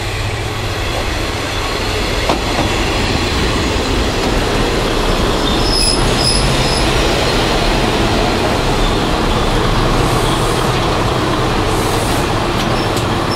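Kiha 20 diesel railcar running into the platform: a steady diesel engine drone under the rumble of wheels on rail, with two short high squeals about six seconds in.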